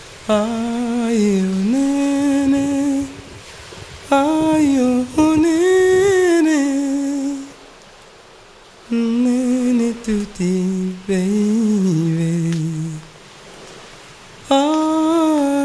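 A person humming a slow, wordless melody in long held notes, in four phrases with short pauses between them.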